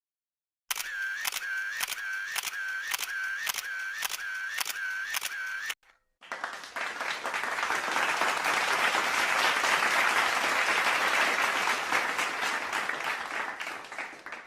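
Camera shutter sound effect clicking over and over, about twice a second, for about five seconds. After a short gap, a crowd applauds, tapering off near the end.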